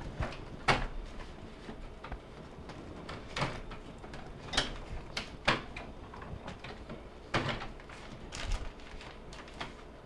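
Wire freezer basket of a Maytag bottom-mount refrigerator clacking and rattling against its metal slide bars and plastic track as it is lined up and dropped into the track notches, about six separate knocks.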